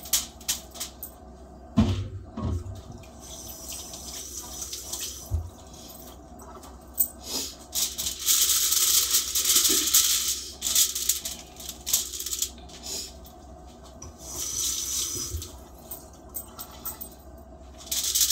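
Aluminium foil crinkling as it is handled around a seasoned fish, in several bursts of rustling. There are a few knocks about two seconds in.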